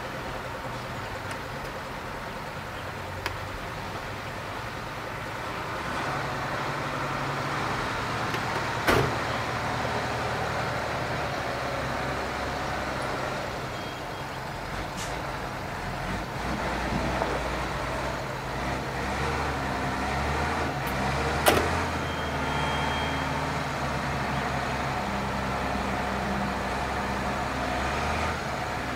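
Mercedes-Benz Unimog U1000's six-cylinder diesel engine pulling steadily as the truck crawls over rough, sloping ground, getting louder about six seconds in. Two sharp knocks stand out, one about nine seconds in and a louder one about twenty-one seconds in.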